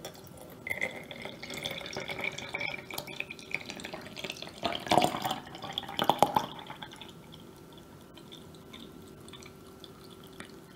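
Milk tea poured in a thin stream into a small glass bottle over tapioca pearls: a splashing, gurgling pour whose pitch rises as the bottle fills. It is loudest about halfway through, then thins to a soft trickle.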